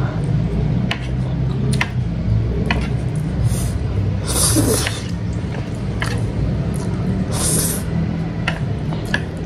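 Close-up eating sounds: chewing and mouth smacks with scattered sharp clicks, and two short hissing slurps of instant noodles, about halfway through and again near the end. A steady low hum runs underneath.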